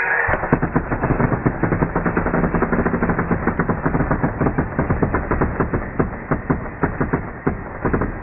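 Home-made BB machine gun driven by an air compressor, firing: a fast, uneven rattle of BBs being blown out over a steady rush of air. It starts suddenly and runs loud, the clicks spacing out a little toward the end.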